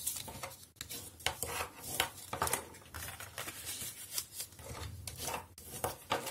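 Patterned cardstock being folded and creased by hand along its scored lines: paper rubbing and rustling, with a series of short sharp crackles as the folds are pressed down.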